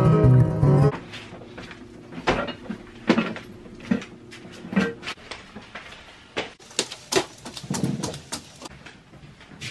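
Strummed acoustic guitar music that stops about a second in, then scattered knocks and thumps: a plastic storage tote being handled, and footsteps on wooden stairs near the end.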